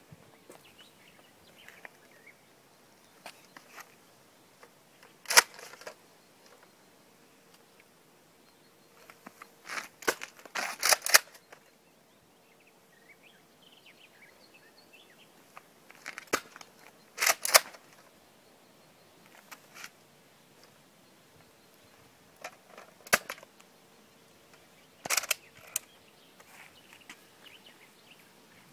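Nerf Retaliator foam-dart blaster being primed and fired: sharp plastic clacks and shots a few seconds apart, some single and some in quick groups of several.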